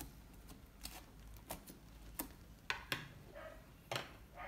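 Faint, scattered clicks and soft squishes of hand-kneaded slime being pressed and pulled on a wooden table, one every half second to a second.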